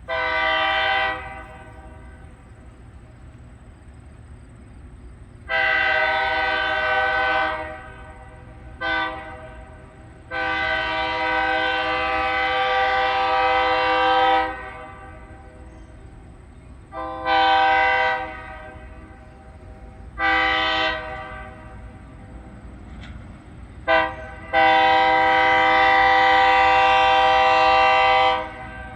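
Railroad locomotive air horn sounding the grade-crossing signal, long, long, short, long, twice over. A steady low rumble of the train runs under the blasts.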